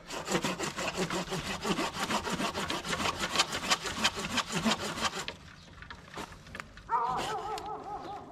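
Hand pruning saw cutting through a living tree stem in quick, even back-and-forth strokes, stopping about five seconds in. Near the end a drawn-out, wavering animal call sounds.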